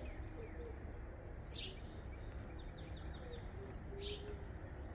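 Birds chirping, with two sharp high chirps about a second and a half and four seconds in and softer short calls between, over a steady low background rumble.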